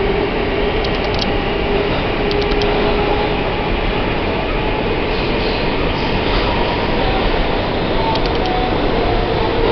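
New York City subway car running through the tunnel, heard from inside: a steady rumble and rail roar, with a few short clicks from the wheels about one, two and a half, and eight seconds in.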